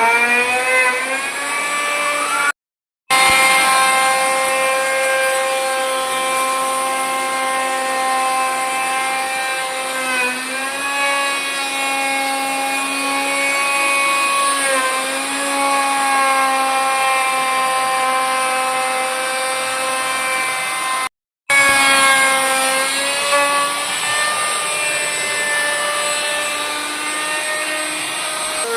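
Electric power tool motor running with a steady pitched whine, winding up to speed at the start and again after a short break, with a couple of brief dips in pitch partway through.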